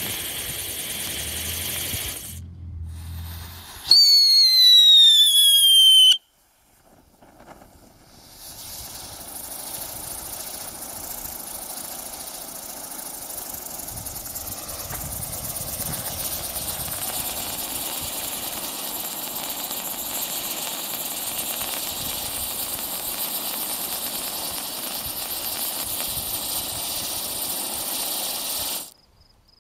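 Chariot of Fire novelty firework car hissing as it sprays sparks, then a loud whistle about two seconds long that falls slowly in pitch. After a brief silence comes a long, steady hiss of spraying sparks, which cuts off suddenly near the end.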